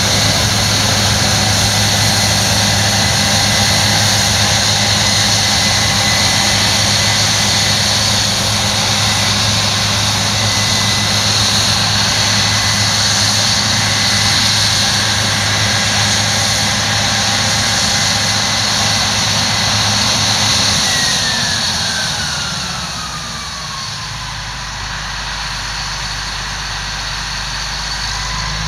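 Case IH combine harvester running at working speed, a steady high whine over a low engine hum. About three-quarters of the way through a whine falls in pitch and the whole sound drops as the machine's drives spin down, leaving the engine running lower and steadier.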